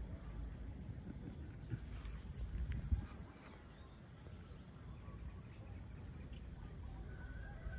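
Steady high-pitched chorus of insects chirping, over a low rumble that eases after about three seconds, with a single soft knock near the three-second mark.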